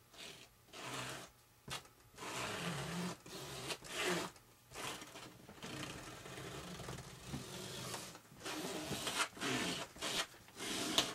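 A piece of balsa wood scraped and dragged over epoxy-wetted fiber tape on a foam RC wing, spreading the epoxy in repeated irregular strokes of varying length.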